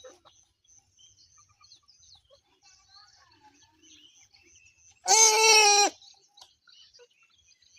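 A single loud, drawn-out animal call lasting under a second, about five seconds in, over faint bird chirping.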